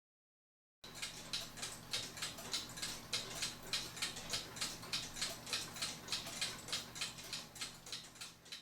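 Mechanical clock ticking, starting about a second in and going on evenly at about four ticks a second.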